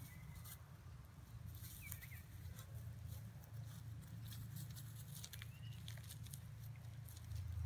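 Dachshunds digging and nosing in dry grass and soil: faint, irregular scratching and rustling, with a few brief high chirps.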